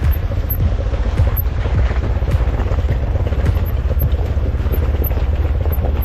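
Off-road vehicle crawling slowly over loose rock, close by: a steady low engine rumble with tyres crunching gravel and stones clicking and popping under them.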